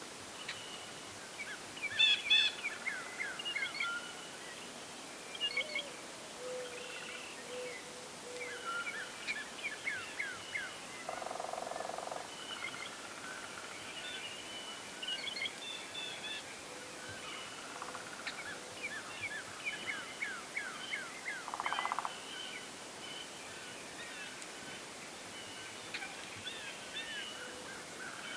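Songbirds singing in the background, repeated phrases of quick, falling chirps. A brief, lower call with a rattling texture sounds about eleven seconds in, and a shorter one near twenty-two seconds.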